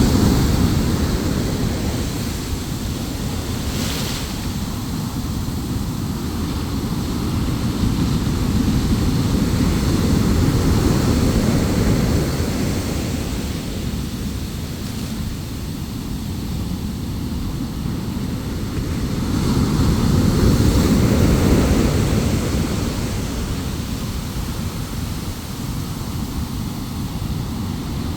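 Large ocean waves breaking and surging, a heavy low rumble that swells and fades about every ten seconds, with wind buffeting the microphone.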